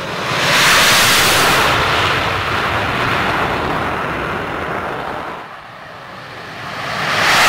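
Jet noise from Sukhoi Su-34 fighter-bombers flying past, a loud, even rush of engine sound. It swells about half a second in, eases off to a dip around five and a half seconds, then rises again near the end.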